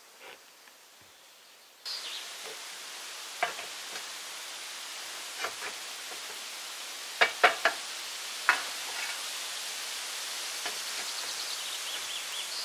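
A handful of sharp knocks, spaced irregularly and with three in quick succession about seven seconds in, over a steady hiss that starts abruptly about two seconds in. A short run of rapid high chirps comes near the end.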